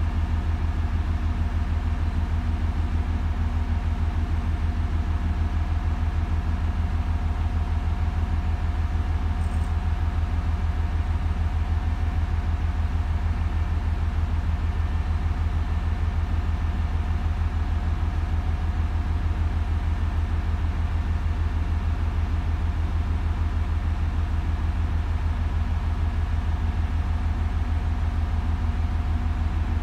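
Steady low idling drone of an engine or machine running at a constant speed, with a faint hum of higher tones over it and no change at all.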